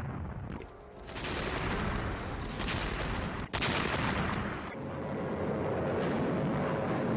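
Dense battlefield din of gunfire and artillery fire, with a short lull about a second in and a brief sharp break near the middle.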